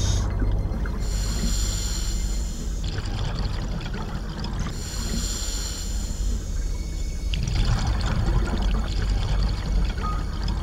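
Scuba diver breathing through a regulator underwater: hissing inhales alternate with bubbling exhales, a few seconds per breath, over a steady low underwater rumble.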